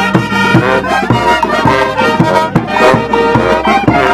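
Brass band playing a dance tune, with horns carrying the melody over a steady drum beat.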